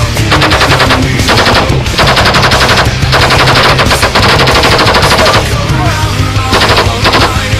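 Belt-fed general purpose machine gun firing bursts of automatic fire: several bursts in quick succession, the longest lasting about two seconds, then a pause and a last short burst near the end.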